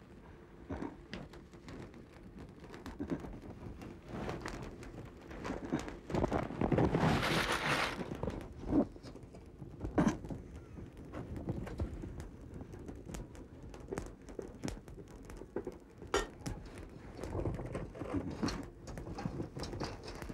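Dry straw burning in a clay hearth, with irregular crackling and popping. A louder rushing burst comes about seven seconds in as the fire flares.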